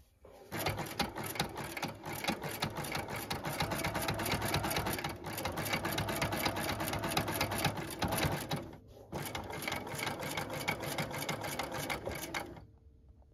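Bernina sewing machine running steadily, top-stitching fabric along a zipper with its number 4 zipper foot. It starts about half a second in, pauses briefly about nine seconds in, then stitches on and stops shortly before the end.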